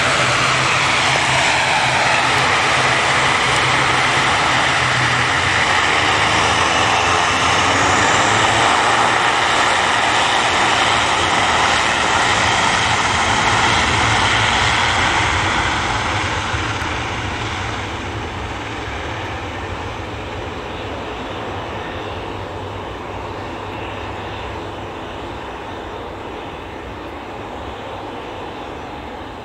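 ATR 72 turboprop airliner at take-off power, its two turboprop engines and propellers running loud on the take-off roll, then fading steadily over the last dozen seconds as it moves away down the runway.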